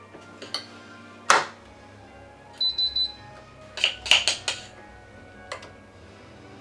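Metal spoon knocking and clinking against a glass mixing bowl and a metal baking tray while batter is spooned into moulds, with one sharp knock just over a second in and a quick run of clinks past the middle. Three short high electronic beeps sound near the middle.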